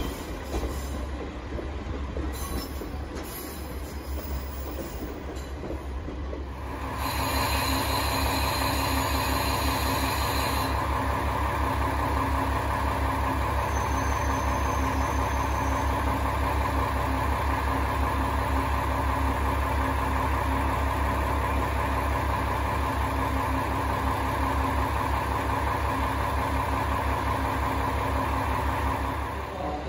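KiHa 40-series diesel railcar idling at a platform: a steady low diesel throb with a hum over it, and a hiss for the first few seconds of the idling. Before that, for about the first seven seconds, the same kind of railcar moves quietly through the station yard, with light rail noise and a few clicks.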